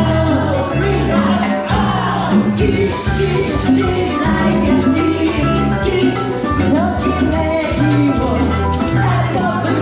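Live salsa band playing, with a steady bass line, percussion strikes and melodic lines.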